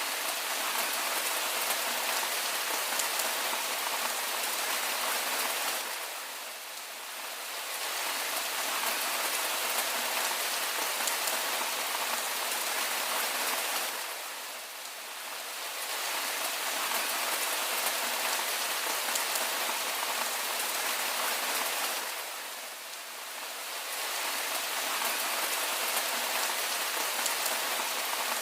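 Steady rain falling, an even hiss of many drops, with no thunder. It softens briefly about every eight seconds, three times in all.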